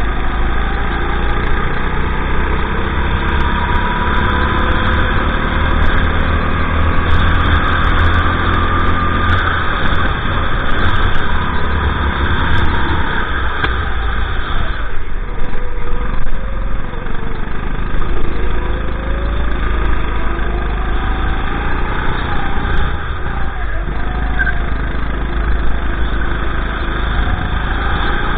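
Honda GX390 single-cylinder four-stroke engine of a Sodi RT8 rental kart, heard on board, running hard at racing speed. Its pitch drops and climbs again twice as the kart slows for corners and accelerates away.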